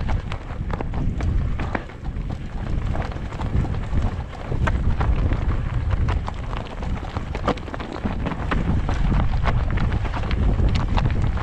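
Wind buffeting a helmet-mounted camera's microphone as a mountain bike descends, with frequent sharp knocks and rattles from the bike rolling over rocky ground.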